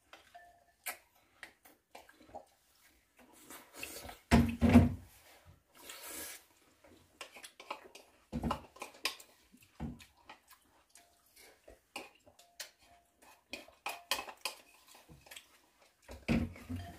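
Spoons clinking and scraping against lacquered wooden bowls during a meal of porridge, in scattered light taps, with a louder low knock about four seconds in.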